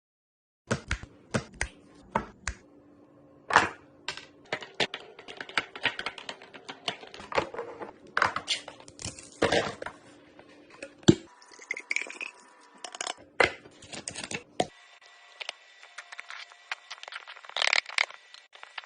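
Containers and packaging being handled and set into a fridge: irregular clicks and knocks with handling noise in between.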